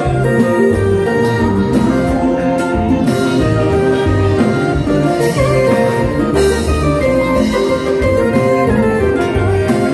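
Live Haitian konpa band playing: electric guitars, bass and keyboard over a steady drum-kit and conga groove.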